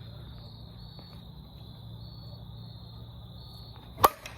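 Crickets chirping steadily in a continuous pulsing trill. About four seconds in, a single sharp crack of a baseball bat hitting a ball.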